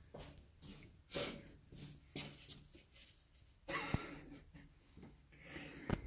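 Quiet breathing: a few short, hissy exhales, with a sharp click about four seconds in and another near the end.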